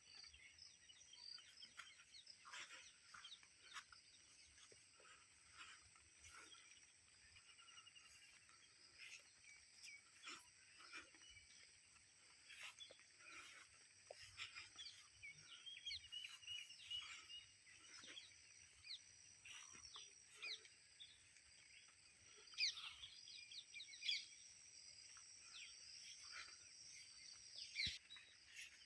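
Faint outdoor bird chirps: many short calls and quick pitch sweeps, a few louder ones in the last few seconds, over a steady high-pitched drone.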